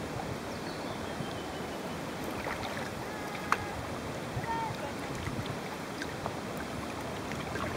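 Steady wind and water noise around a paddled kayak, with a few faint light clicks and a sharper click about three and a half seconds in.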